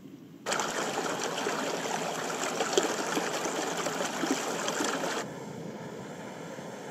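Shallow mountain river rushing over boulders, starting suddenly about half a second in, then cutting off after about five seconds to a softer steady hiss.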